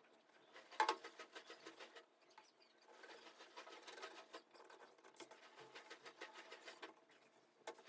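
Hand-tool work on thin wood: a fast, irregular run of light scratches and ticks, with one louder click about a second in.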